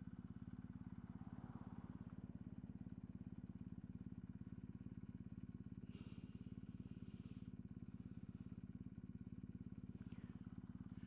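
BMW R1250 GS Adventure's boxer-twin engine idling steadily with an even pulse while the bike stands pulled over. A brief higher-pitched sound comes in about six seconds in.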